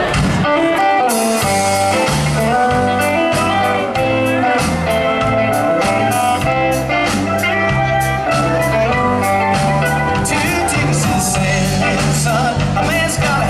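Live band playing: electric guitar over a bass line stepping from note to note, with drums and cymbals coming in about a second in.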